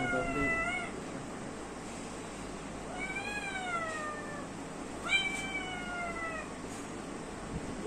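Cat meowing while held up for examination: three long, drawn-out meows, each falling in pitch. The first tails off just under a second in, and the other two start about 3 and 5 seconds in.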